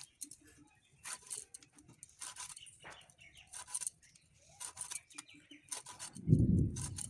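Pieces of eel being cut and scraped against a boti, a fixed curved blade: a string of short, uneven scraping strokes. Near the end a louder, low dull thump.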